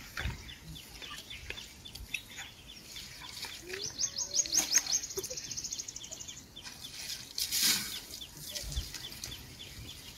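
Wild birds calling: a sharp high tick repeating three to four times a second, and about three and a half seconds in a fast high trill lasting about two seconds. A short rush of noise comes a little after seven seconds.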